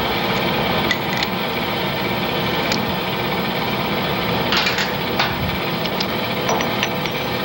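Metal lathe running with a steady hum, with a scattering of short metallic clicks and clinks as tooling is handled at the machine to clear a drilling problem.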